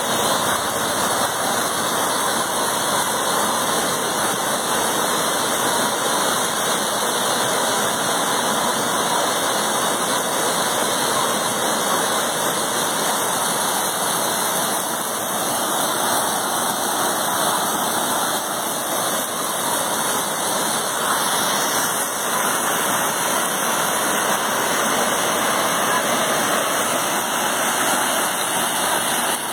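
Steady rush of flowing water, an unbroken even roar with no change in level.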